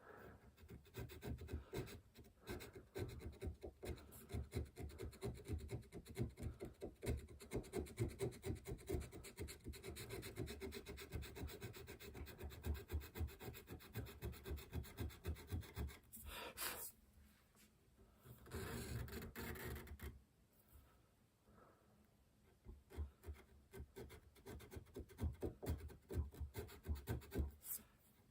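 Hand chequering tool scraped back and forth in quick short strokes, cutting grooves into wood. Past the middle the strokes pause for two brief, louder rushing sounds.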